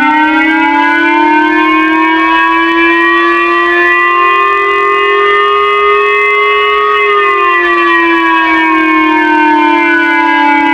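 Emergency warning siren sounding one slow wail: its tone climbs gradually in pitch for about five seconds, holds briefly, then slides back down toward the end.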